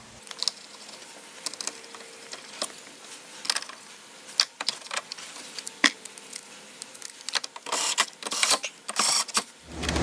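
Scattered light clicks and rattles from the power sliding door's cable drum mechanism on a Honda Odyssey as its cover is fitted and the door is worked by hand, with a denser clatter about three quarters of the way through.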